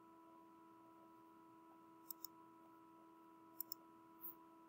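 Computer mouse clicks placing the corners of a polygon on a web map: two quick press-and-release pairs about a second and a half apart, then a softer click near the end. A faint steady hum runs underneath.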